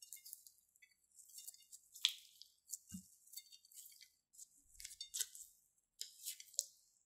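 Glossy slime with makeup mixed into it being kneaded and stretched by hand, giving off soft, irregular sticky crackles and pops.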